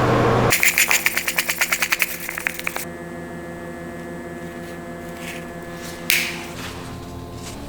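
A small machine makes a rapid, even rattle of about nine strokes a second that fades away over about two seconds. A steady hum follows, with a single sharp knock about six seconds in.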